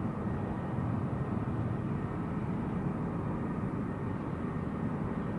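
Steady low rumble of a distant jet airliner, likely spooling up for its takeoff roll.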